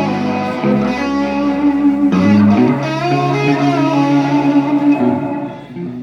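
Live rock band's electric guitar and bass guitar playing sustained, ringing chords over an amplified stage mix, thinning out about five and a half seconds in.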